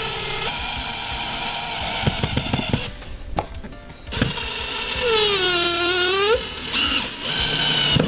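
DeWalt cordless drill whirring as it drives a screw through a metal transition track into the floor, in two runs with a short stop about 3 seconds in. In the second run the pitch sags and recovers as the screw bites.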